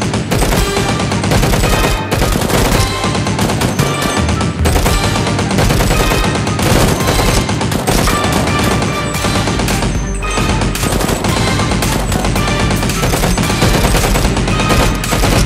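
Rapid, continuous gunfire sound effects over loud background music.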